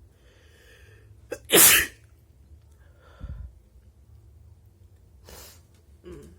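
A single loud, wet, explosive human sneeze about a second and a half in, after a faint drawn-in breath, then a few quieter breathy sounds.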